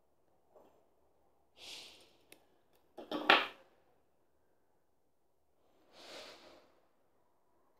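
Strands of small black glass beads being handled and laid down on a felt-lined tray: a few soft rustles and small clicks, the loudest a short clatter about three seconds in.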